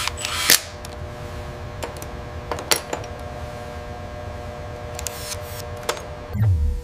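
Scattered sharp mechanical clicks and light metallic ticks, about half a dozen, from a robotic hand's finger joints being worked on, over a steady hum with a few held tones. Near the end a deep whoosh swells in, falling in pitch.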